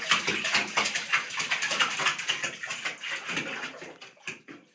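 A small dog paddling its legs in a bathtub of water: a quick, continuous run of small splashes that fades away near the end.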